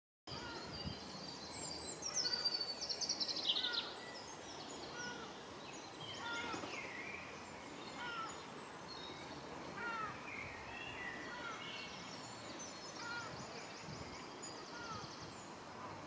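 Songbirds singing and calling: a loud rapid trilling phrase about two seconds in, then repeated short whistled notes and high trills, over a steady background hiss.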